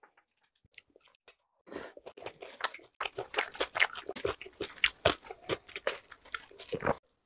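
A person chewing a mouthful of stir-fried kimchi, heard close up. A dense run of rapid mouth clicks starts about two seconds in and stops abruptly near the end.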